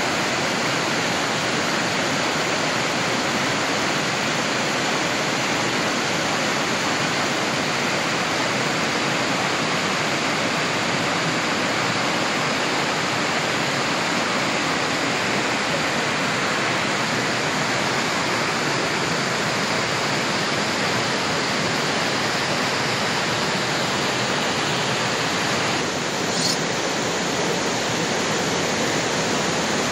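Steady rush of a fast-flowing, swollen river running over a stony bed.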